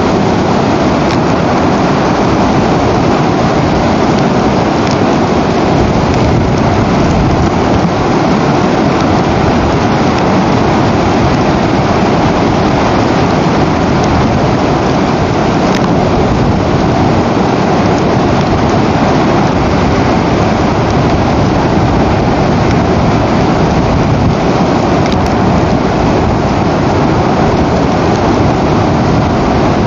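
Steady, loud rushing noise on an outdoor nest camera's microphone, even throughout with a few faint ticks and no bird calls standing out.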